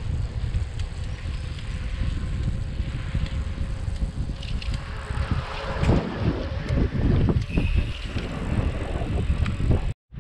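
Wind buffeting the microphone while cycling: a steady low rumble. About halfway through, irregular rattles and knocks join in, and the sound cuts out briefly near the end.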